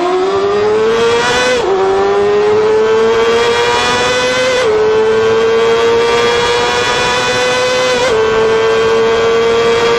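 Honda sport bike's engine under hard acceleration, its pitch climbing steadily and dropping sharply with an upshift three times, near 2, 5 and 8 seconds in. The engine note echoes off the walls of a road tunnel.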